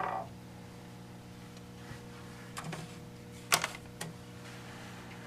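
The last strokes of a 10-inch fire alarm bell ring out and die away at the very start. Then a faint steady electrical hum runs, with a few sharp clicks around the middle, the loudest about three and a half seconds in.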